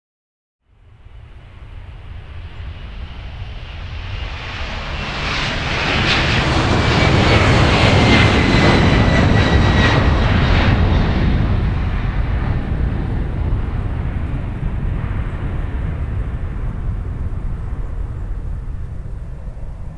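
Boeing 767-300's Pratt & Whitney PW4060 turbofans at takeoff power. The jet roar swells in over several seconds to a peak, with a thin whine that falls in pitch as the aircraft passes, then slowly fades.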